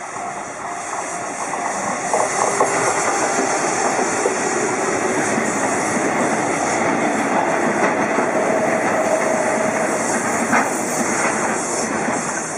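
A train passing close by on the JR Tohoku Main Line, a steady loud rush of wheel-on-rail noise. It builds over the first couple of seconds, holds, and has a sharp knock near the end.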